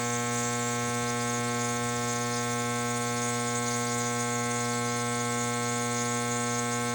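Electric compressor nebulizer running: a steady buzzing hum with a constant hiss of air above it.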